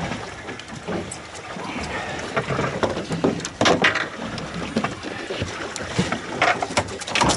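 Knocks and clatter of fishing gear and a landed fish being handled in a boat, over a steady wash of wind and water noise; the loudest knocks come about halfway through and again near the end.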